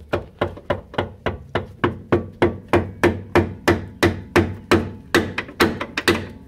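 Hammer blows on the steel pivot bolt of a Chevy Aveo's rear axle trailing-arm bushing, about three a second, each with a short ring, driving the bolt out of the bushing.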